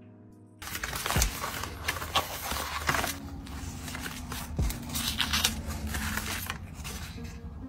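Paper rustling and crinkling as a printed paper scrap is handled and laid on a journal page, with small clicks and scrapes and a few soft thuds. It starts about half a second in after a brief quiet.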